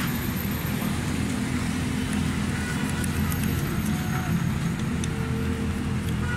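A steady low mechanical hum with a few faint ticks about three seconds in.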